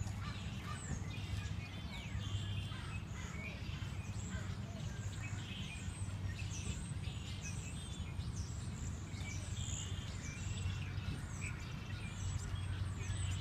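Outdoor park ambience: small birds chirping and twittering in many short calls, some sweeping down in pitch, over a steady low hum.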